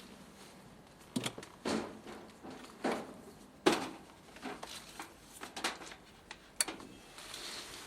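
Handling noise: a series of irregular clicks and knocks from objects being handled and set down, the loudest just before four seconds in.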